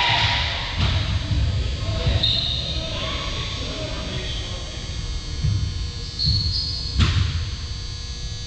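Indistinct distant voices and scattered low thumps echoing in a large gymnasium, with a sharp knock near the end.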